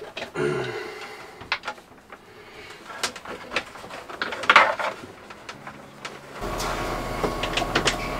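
Scattered clicks, knocks and rustling of hands working on cable and fittings at a boat's helm. About six seconds in, a steady electrical hum comes on.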